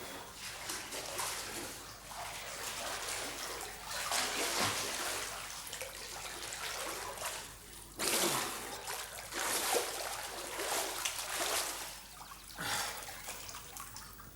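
Water splashing and trickling in a swimming pool, with louder splashes about eight seconds in and again near the end.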